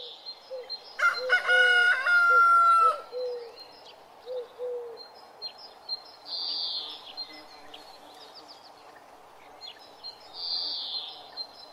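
A rooster crows once, a long call starting about a second in, over scattered small bird chirps, with a couple of short high buzzing sounds later on.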